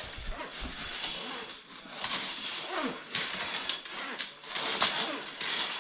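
Steel drain-cleaning spiral being dragged over a concrete floor and wound into its coil, scraping and rattling with many small metallic clicks.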